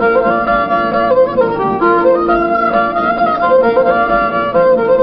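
Old-time Anglo-American fiddle tune played on solo fiddle: a continuous run of bowed notes in a steady dance rhythm.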